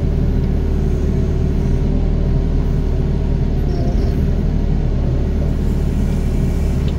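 Doosan DX55 mini excavator's diesel engine running steadily under load while it works soil, a constant low rumble.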